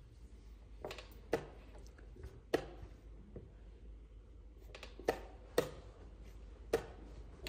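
Wooden chess pieces being set down on the board and chess clock buttons being pressed in a fast blitz exchange. About six sharp clicks and knocks, several in quick pairs of a move followed by a clock press.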